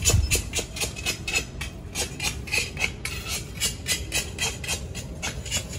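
Rapid, even scraping strikes, about five a second, as weeds and dry grass are scraped out from the brick paving by hand.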